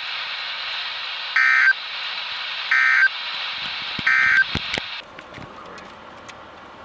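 NOAA Weather Radio receiver hissing with static, then sending three short, evenly spaced buzzy data bursts about a second apart: the SAME end-of-message tones that close a tornado warning broadcast. About five seconds in the static cuts off as the receiver mutes.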